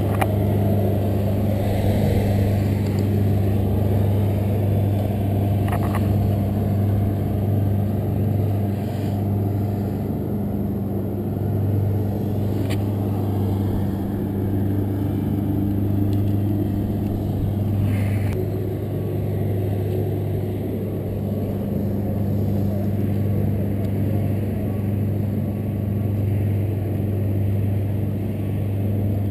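A steady low mechanical hum, like an engine running at constant speed, with a few brief clicks or knocks about 6, 13 and 18 seconds in.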